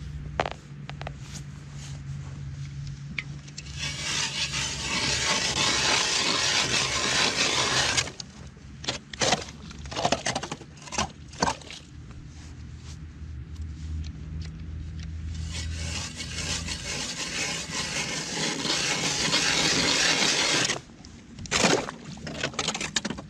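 Hand-cranked ice auger boring through lake ice, heard as two steady grinding scrapes of about four to five seconds each. Scattered sharp knocks come between the scrapes and shortly after the second one.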